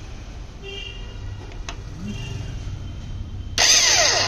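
Motorcycle electric starter motor whirring loudly for under a second near the end, its pitch falling. Before it there is only a low hum and a faint click.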